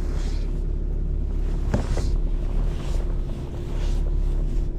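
Tow truck engine running steadily at low speed while manoeuvring, heard from inside the cab, with a short knock about two seconds in.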